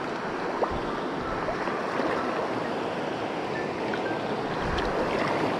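Mountain stream flowing over rocks: a steady wash of rushing water.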